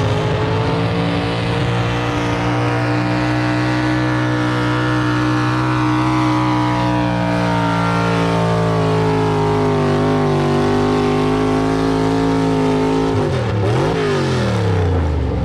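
Pulling truck's engine held at high revs under full throttle while dragging a pulling sled, its pitch sagging slowly under the load. About thirteen seconds in the revs drop sharply, swing back up and fall away as the pull ends.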